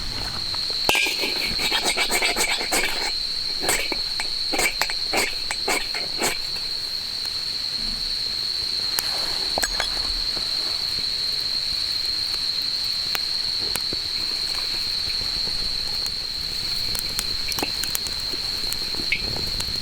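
Insects chirring in one steady, unbroken high note. A run of sharp clicks and knocks sounds over it in the first six seconds.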